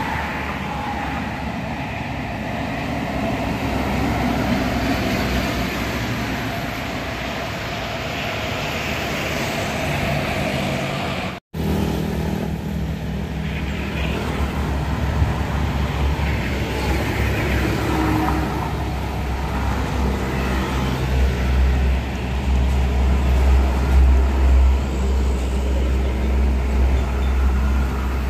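Road traffic passing a roadside: cars, a pickup and motorcycles. In the second half a heavy diesel truck's deep engine rumble builds and becomes the loudest sound, as a container truck passes close. The sound cuts out briefly about a third of the way through.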